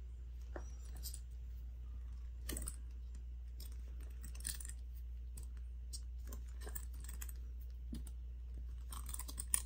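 Scattered soft clicks and rustles of a crochet hook pulling t-shirt yarn through slip stitches, with the metal swivel clasp on the strap clinking now and then, over a low steady hum.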